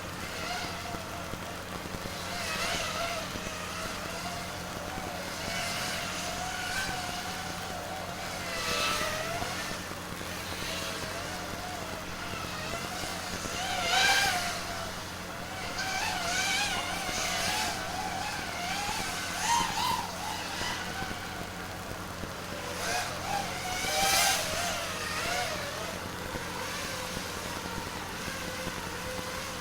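FPV quadcopter's electric motors whining, the pitch wavering up and down with the throttle, with two louder surges, one about halfway through and one later on.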